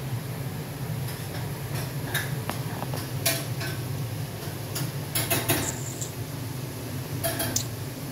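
Dishes and cutlery clinking in short scattered knocks, a cluster about five seconds in and another near the end, over a steady low hum.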